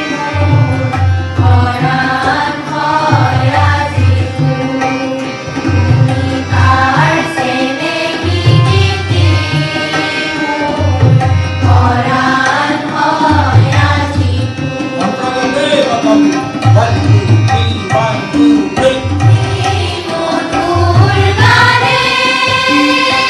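A large group of children singing an Assamese song together from lyric sheets, accompanied by a drum playing a steady rhythmic pattern of low strokes.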